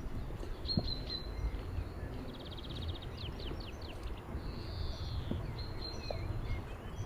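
Songbirds singing: several phrases of quick trills and short down-slurred notes, with a brief buzzy note near the middle, over a steady low background noise with a few faint knocks.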